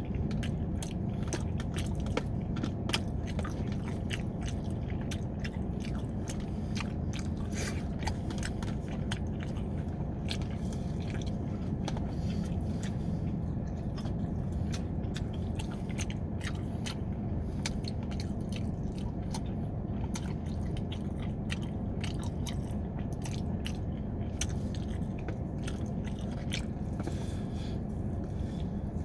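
Close-up mouth sounds of a person eating: chewing and biting, with many short, sharp crunching clicks scattered throughout, over a steady low hum.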